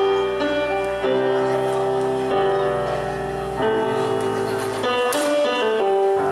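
Music with long held notes and chords that change about every second to second and a half.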